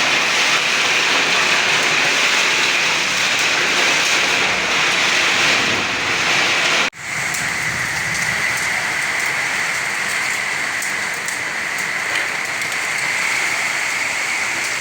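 Heavy rain pouring steadily. The sound cuts out for an instant about halfway through and resumes slightly quieter.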